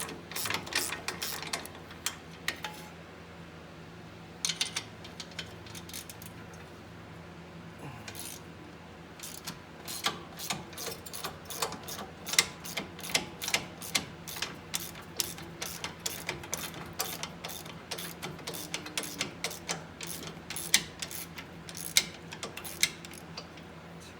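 Hand ratchet clicking as it backs out 14 mm bolts: runs of quick clicks with short pauses between, sparse at first and almost continuous for the second half.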